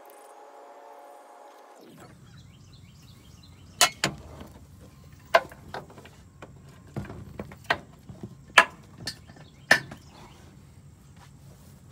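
A series of sharp metal clanks and knocks, about nine of them spread over several seconds, from the steel links and pins of a tractor's three-point hitch being handled.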